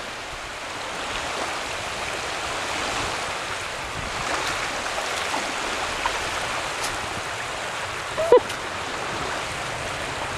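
Lake water sloshing and lapping in the shallows, a steady rushing wash, with a short sharp sound about eight seconds in.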